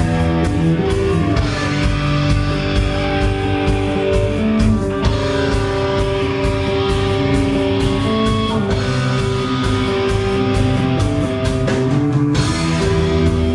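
Rock music with guitar, played loud and steady, the chords changing every second or so.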